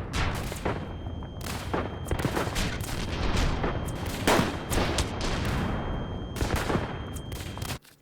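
Gunfire: many shots fired in quick, irregular succession over a low rumble, with a faint high steady tone beneath them. It all cuts off suddenly near the end.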